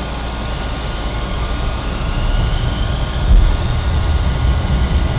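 Toyama Chiho Railway 9000-series low-floor tram heard from inside as it moves off: a steady low rumble of wheels on rail that grows louder, with a faint rising whine about two seconds in and a low thud about three seconds in.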